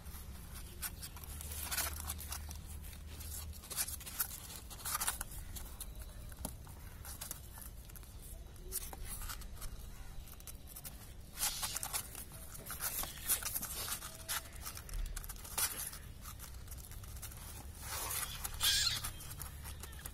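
Scratchy rustling of kittens shuffling and pushing one another on a cardboard sheet while nursing, in short irregular bursts, a few louder ones around the middle and near the end.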